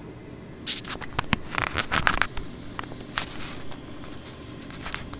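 Handling noise from a phone camera being moved and repositioned: a quick flurry of rustling and sharp clicks, then a few scattered clicks, over a steady low hum.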